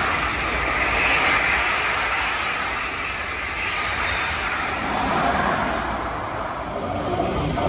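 Passenger train rolling along a track, a steady rushing of wheels on rail that fades about six to seven seconds in, with louder train noise rising again at the very end.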